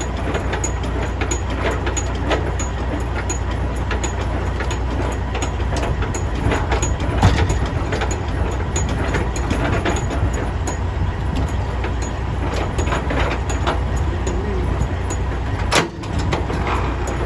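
Semi-truck's diesel engine idling steadily, with a faint regular ticking about three times a second and a single sharp knock near the end.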